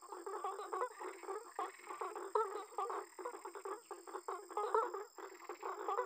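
Chorus of male blacksmith frogs croaking: short, overlapping calls, several a second, over one another. These are the males' mating calls to attract females.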